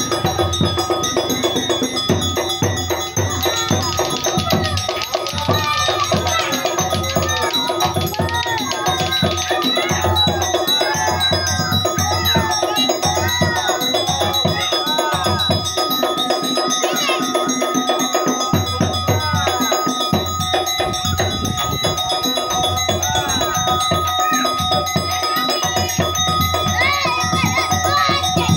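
Percussion music of a drum beating steadily under ringing metal tones, the kind of drum-and-gong accompaniment played for a topeng monyet monkey show, with voices over it.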